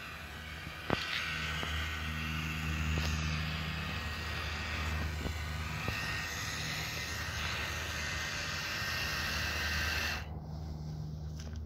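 Small electric motor of a 1:16 scale RC amphibious jeep driving its propeller, a thin whine over hiss with a steady low rumble beneath. The whine and hiss cut off suddenly about ten seconds in as the jeep reaches the shallows. One sharp click comes about a second in.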